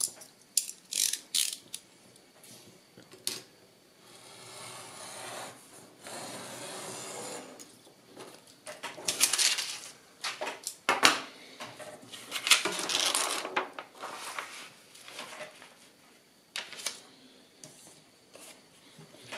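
Craft knife drawn along a steel ruler, slicing kraft paper in one long steady scrape from about four seconds in. Around it, sheets of paper rustle and slide and the ruler clicks and knocks as it is handled.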